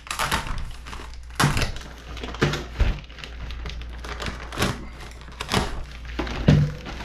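Utility knife slitting a plastic poly mailer bag: crinkling, tearing plastic in a series of strokes about a second apart.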